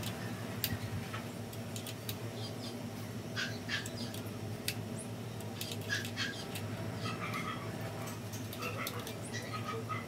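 Scattered light metallic clicks and taps from a bicycle disc brake caliper and its bolts being handled and fitted to the front fork, over a steady low hum. Short high squeaks come now and then.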